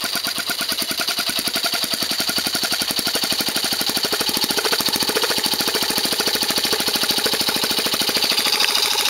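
A Cox .049 model glow engine converted to run on compressed air, driven by a 12-volt Bon-Aire tyre compressor, with both running together in a rapid, even clatter that grows a little louder toward the end.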